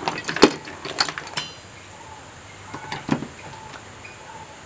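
A few sharp clicks and light clatters from hands and a screwdriver handling wiring and parts in an opened CRT television chassis. The clicks come in the first second and a half, with another short clatter about three seconds in.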